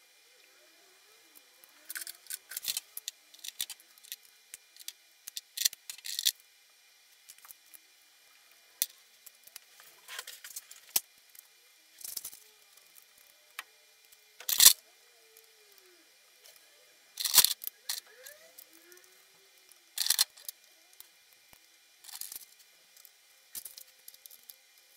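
Small metal hold-down clamps, screws and hand tools clinking and clicking as an aluminium plate is clamped onto a perforated wooden machine bed. The clicks come irregularly, with a few sharper knocks just past halfway; the spindle is not running.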